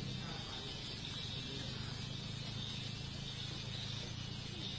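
Steady low hum of an idling car engine, with a constant high drone of forest insects over it.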